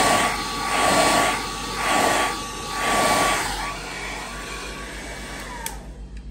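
Hand-held hair dryer blowing on high with a thin steady whine, swelling and fading about once a second. It heats self-adhesive wallpaper on a cabinet door to soften the glue so the paper can be peeled off. The airflow weakens after about halfway, and near the end a click is followed by a sharp drop in sound.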